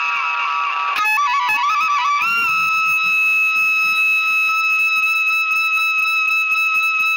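Background music: a single melody line of quick-changing notes, then one long held note from about two and a half seconds in.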